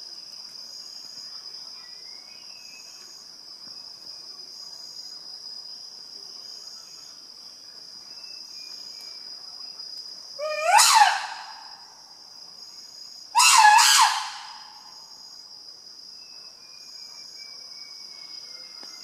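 Steady high-pitched drone of rainforest insects, with faint thin whistles over it. Near the middle come two loud animal calls a couple of seconds apart, the first a rising cry, the second a harsher shriek.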